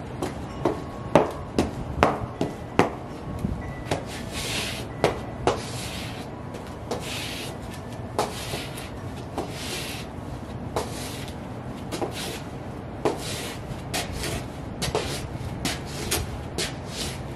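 Sheepskin UGG boots tapping and scuffing on a concrete floor: irregular knocks about once or twice a second, with a few longer scraping rubs of the soles.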